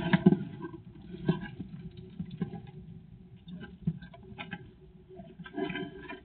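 Light scrabbling, scratches and sharp taps of a small animal moving about a wooden feeder box piled with peanuts. The sounds are busiest at the start, then come as scattered clicks, with another bout of rustling near the end.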